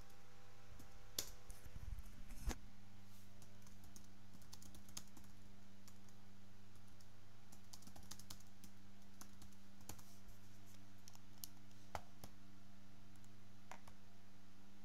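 Computer keyboard typing: irregular keystroke clicks, with two louder ones in the first few seconds, over a steady low hum.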